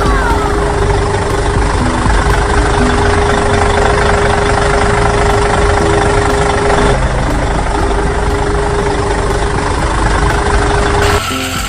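A loud engine running steadily, with a steady hum through it. The sound shifts about seven seconds in and cuts off abruptly shortly before the end.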